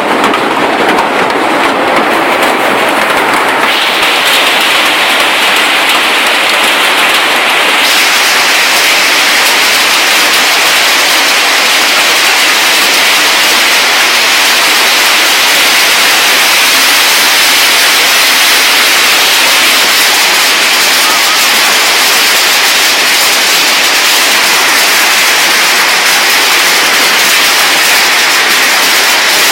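Heavy storm rain, a loud steady hiss that turns abruptly brighter about four seconds in and again about eight seconds in.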